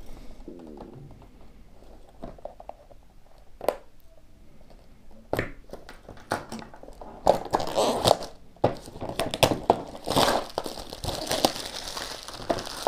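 Cellophane shrink wrap being torn and peeled off a small cardboard product box: scattered clicks and taps at first, then dense crinkling from about seven seconds in.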